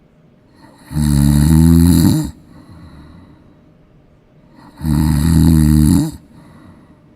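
Golden retriever snoring in deep sleep: two loud, buzzing snores, each a little over a second long and about four seconds apart, with quiet breathing between them.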